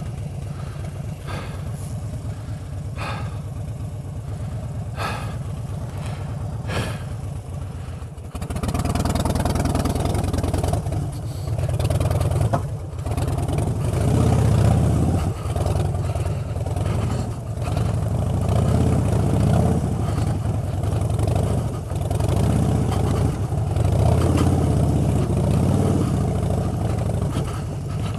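Harley-Davidson Street Bob's V-twin engine idling. About eight seconds in it gets louder as the bike pulls away, then runs under uneven, constantly varying throttle while climbing a loose rocky track.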